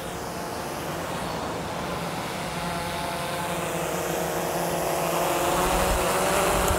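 DJI Phantom quadcopter's propellers whirring as it runs up and lifts off, a steady hum that grows louder.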